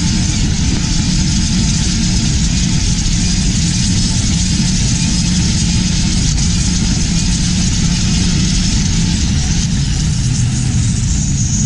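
Turbo diesel engine of a longtail drag boat running steadily under way, a loud, even engine note with no change in speed.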